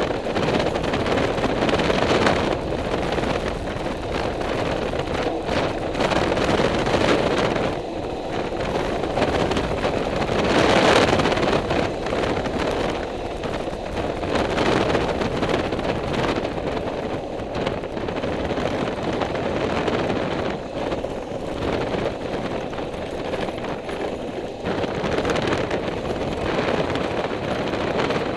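Wind buffeting the microphone of a moving vehicle over its running engine, with a rapid rattle throughout. The noise swells and eases every few seconds.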